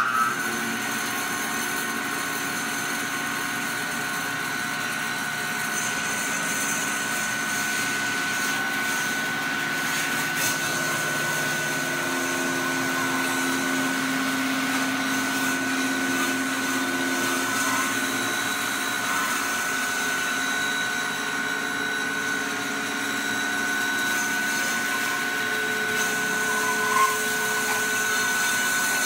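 Bandsaw running steadily, its blade cutting through a thick cross-section of oak as the slab is fed slowly into it.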